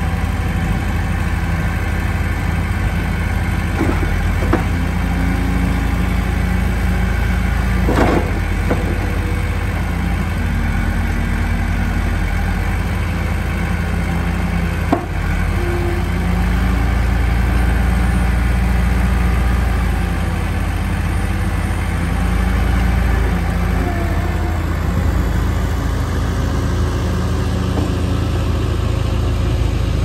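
Case 1840 skid steer loader's diesel engine running steadily while the loader arms are raised and lowered, the engine note shifting a little as the hydraulics take load. A few sharp knocks come through, about 4, 8 and 15 seconds in.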